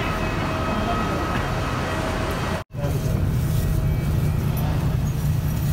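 Steady vehicle rumble with a low hum; it cuts out abruptly for an instant about halfway through, then resumes with the low hum stronger.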